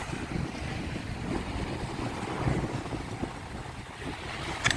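Wind buffeting the microphone in a steady rumble, over the wash of surf breaking on the beach. A short sharp click near the end.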